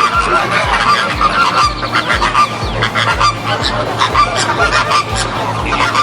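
A flock of flamingos honking, many goose-like calls overlapping, over a regular low pulse about three times a second.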